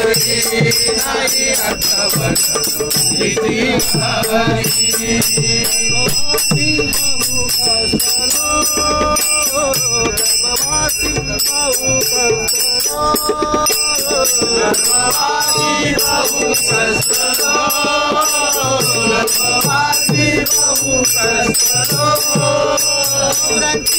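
Men singing a Marathi devotional bhajan to small brass hand cymbals (taal/manjira) struck in a steady rhythm, their high ringing running under the voices.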